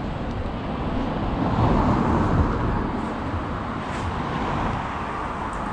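A car driving past, its noise building to a peak about two seconds in and then fading.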